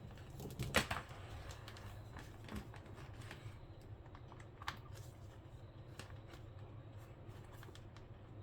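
Light plastic clicks and taps from a power adapter cable and its plug being handled and untangled, packed close together for the first few seconds and then only now and then. A steady low hum runs underneath.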